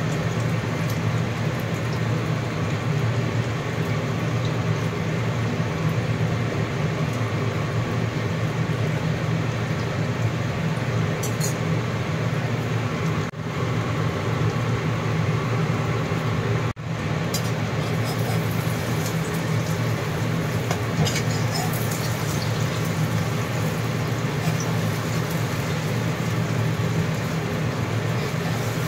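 Egg and carrot omelette frying in hot oil in a nonstick pan: a steady sizzle with a low hum underneath. The sound drops out briefly twice near the middle.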